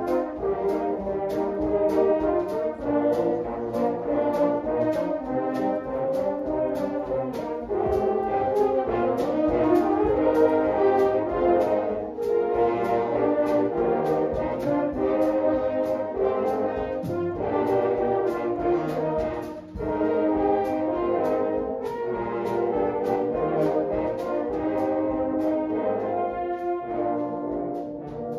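An ensemble of French horns playing a pop-song arrangement in several parts, over a steady beat of clicks about twice a second.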